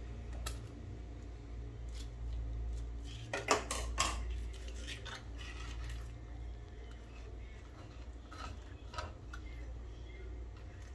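Kitchen scissors snipping cooking string on a roast chicken roll, with sharp metallic clicks and clinks, the loudest cluster about three and a half to four seconds in. A steady low hum runs underneath.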